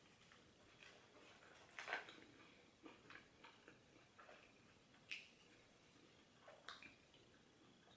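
Faint eating sounds: chewing and moist mouth clicks in irregular short bursts, loudest about two seconds in and again around five seconds.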